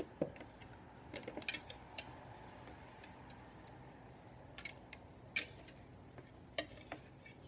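Scattered faint clicks and taps of a slotted serving spoon knocking against the rim of a plastic pressure cooker pot and a plastic chopper bowl as chicken pieces are scooped from sauce and dropped in.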